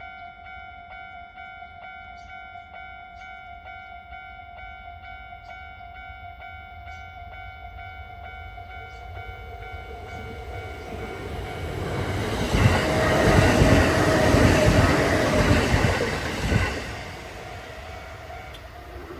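Level-crossing warning bell ringing steadily in a repeating ding while a Kintetsu 8000 series electric train approaches and runs past. The train is loudest for about four seconds two-thirds of the way through, then fades, and the bell keeps ringing.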